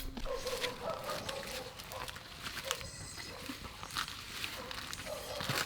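An animal's drawn-out, wavering calls, with sharp clicks and taps throughout.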